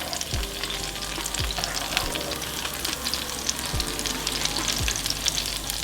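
Chile-dipped corn tortillas frying in hot vegetable oil at medium heat, a steady sizzle with fine crackling pops.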